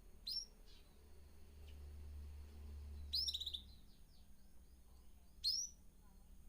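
Caged birds chirping: three sharp, high calls spaced a few seconds apart, the middle one a quick run of several notes.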